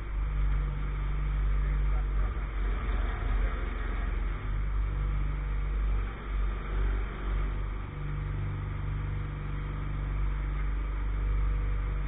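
Engine of a pile-driving rig running steadily at a low pitch, its level dipping and swelling a few times about halfway through. No hammer blows.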